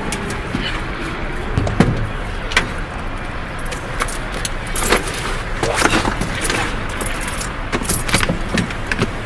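Handling noise of an open umbrella being wrestled in through a car's window and door: irregular clicks, rattles and rustling of the fabric and ribs against the car, over steady street traffic.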